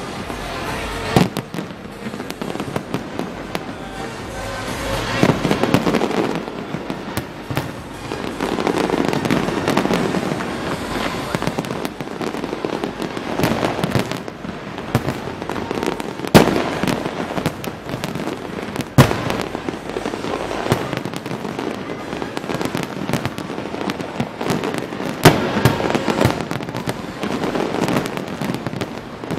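Aerial fireworks display going off continuously: a dense run of bangs, pops and crackling, with a handful of sharper, louder bangs standing out, the loudest about halfway through.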